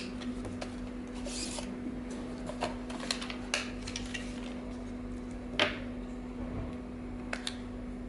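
Unboxing and handling noises of a small plastic door/window entry alarm: the plastic blister pack crinkles briefly about a second and a half in, and a series of sharp plastic clicks and taps follows as the alarm unit is handled, the loudest a little past halfway. A steady low hum runs underneath.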